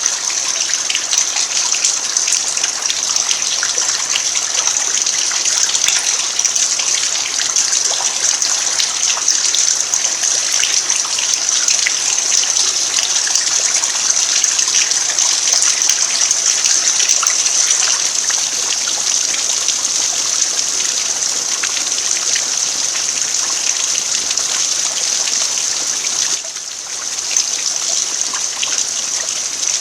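Steady rain falling on a bare dirt yard, a dense hiss of countless drops, dipping briefly near the end.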